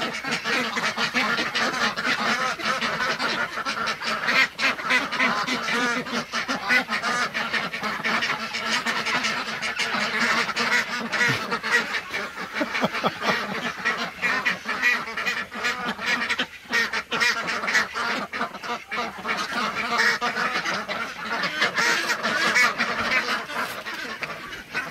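A flock of domestic ducks quacking and honking nonstop in a dense, overlapping clamour, the sound of hungry ducks begging for food. Many short clicks run through it.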